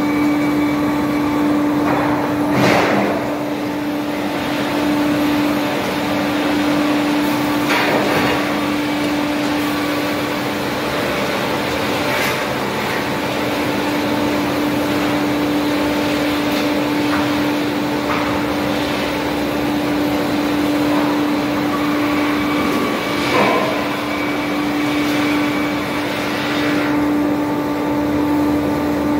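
PR BG 35-45 circular-saw canter running, its saws cutting a log lengthwise into beams and side boards on the track-chain feed: a steady hum with machine noise. A few sharp knocks and clatters come through along the way.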